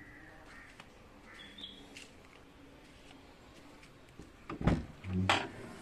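Two thumps near the end, about 0.7 s apart, as a hand knocks on the chrome rear bumper and boot of a Hindustan Ambassador; the second has a short, low, hollow ring. Faint bird chirps sound in the background before them.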